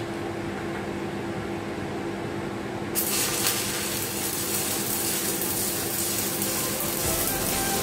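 Stick (arc) welding with a 7018 electrode on a steel hull seam: the arc strikes about three seconds in and then runs as a steady crackling hiss. A steady low hum runs underneath.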